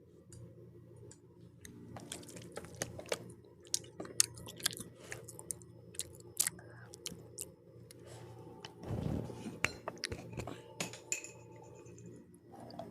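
Close-up chewing of crunchy pizza crust, with many short sharp crunches and a louder rustling burst about nine seconds in, over a faint steady hum.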